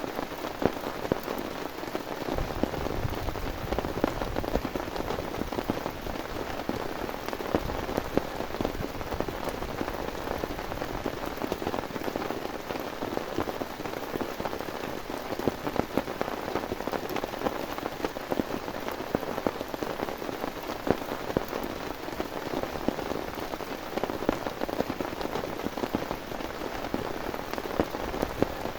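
Heavy rain falling steadily, with many individual drops striking a surface close by. A brief low rumble comes about two seconds in.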